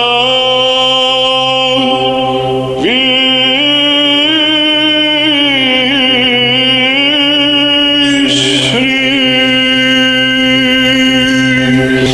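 Orthodox Byzantine chant in the sixth tone, a single voice singing long melismatic held vowels over a steady low drone (ison). Phrases start afresh about three seconds in and again about eight seconds in.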